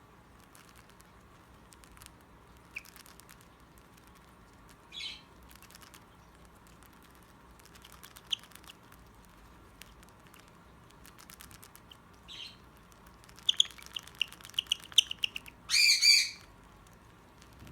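Two cockatiels beak to beak, with sharp beak clicks and taps and a short chirp now and then. Near the end comes a quick run of clicks and chirps, then a loud harsh squawk. The owner calls this beak contact kissing but thinks it may be a fight.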